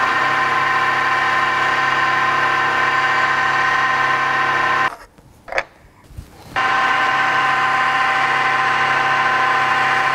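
Milling machine running with a steady whine while an end mill cuts a square onto the end of a metal chuck-key blank. About five seconds in the machine sound drops out for a second and a half, with a single click as the collet block is turned 90 degrees in the vise, then the milling resumes.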